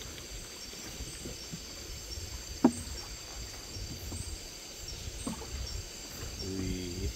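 Light knocks and handling on a wooden boat's planks while a caught fish is strung on a line, with one sharp knock about two and a half seconds in. A steady chorus of night insects runs underneath.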